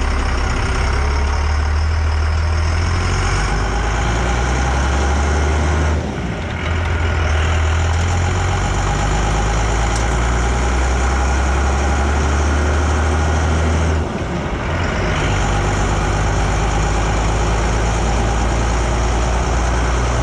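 First-generation Dodge Cummins 5.9-litre inline-six turbodiesel pickup driving under load, its low engine note steady but dropping briefly twice, about 6 and 14 seconds in, as gears are changed. No odd noises or vibrations from the freshly rebuilt rear axle.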